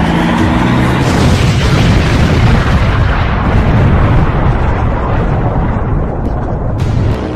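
Explosion sound effect: a loud blast about a second in, followed by a heavy rumble that slowly dies away over several seconds.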